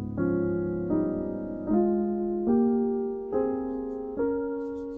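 Background piano music: soft sustained chords, a new one struck about every 0.8 seconds and fading before the next.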